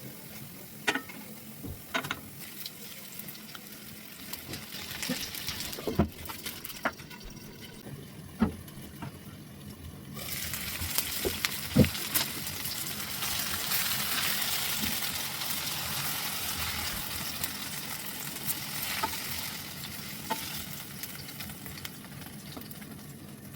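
Food frying and sizzling in a hot pan, with scattered sharp knocks of a utensil on the pan. About ten seconds in the sizzle suddenly gets much louder and stays strong.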